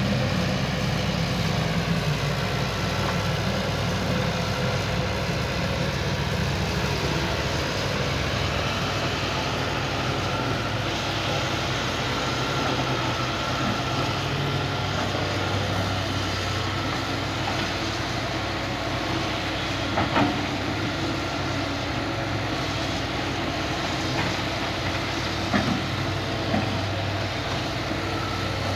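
Hitachi hydraulic excavator's diesel engine running steadily under work, with a faint whine, a sharp knock about two-thirds of the way through, and two more knocks near the end.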